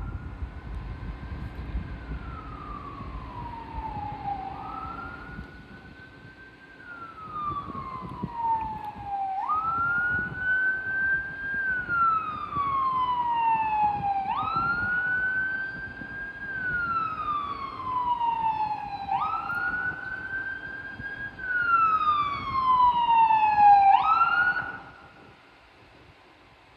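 Fire engine siren wailing: each cycle rises quickly, then falls slowly over about four seconds, repeating about six times. It grows louder toward the end as the truck approaches, then cuts off a couple of seconds before the end.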